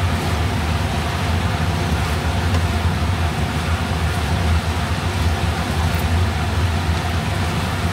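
Steady low hum with an even hiss underneath, unchanging throughout.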